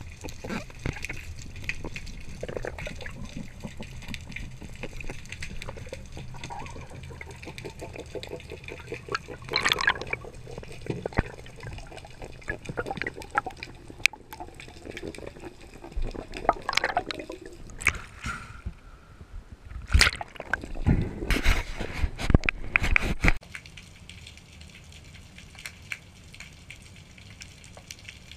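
Underwater sound through a GoPro housing: a steady crackle of water with bubbles and short knocks while the diver handles the catch. A run of louder bursts comes about two-thirds of the way through, then the sound drops to a quieter crackle.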